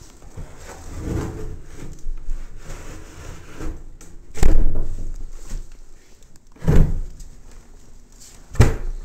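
A 3/4-inch plywood subfloor panel being test-fitted into the floor opening: scraping and rubbing of wood, then three loud wooden thumps as it is knocked into place.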